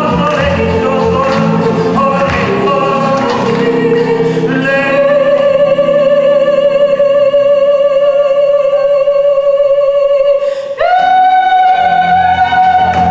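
A male yodeler sings live with an acoustic guitar, a drum kit and an electric guitar. After a few seconds of melody, he holds one long note for about six seconds while the band drops back. Then his voice breaks up to a higher held note as the band comes back in, closing out the song.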